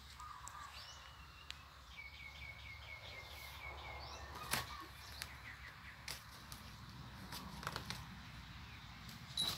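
Quiet outdoor ambience with a bird calling in a quick run of repeated chirps for about two seconds, and a single sharp knock near the middle.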